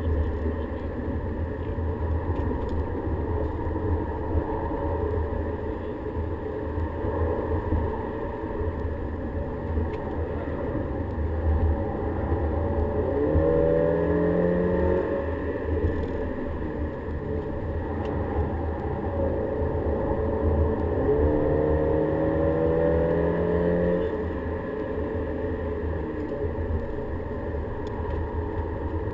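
Volkswagen Golf GTI engine and road noise heard from inside the cabin at track speed. Through the middle the engine note rises in pitch twice under acceleration, and this is the loudest part.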